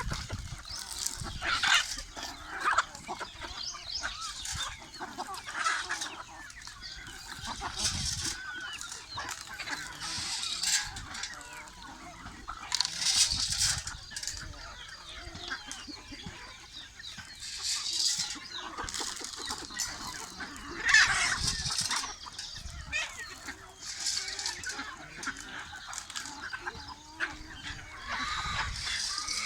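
A flock of free-range chickens clucking and calling, with louder calls every few seconds.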